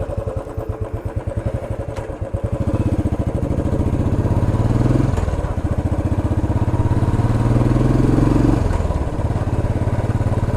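Royal Enfield Classic 350 Stealth Black's single-cylinder engine through its stock silencer while riding. It starts with slow, distinct thumps at low revs, then the revs climb, drop back about halfway through, climb again and drop near the end.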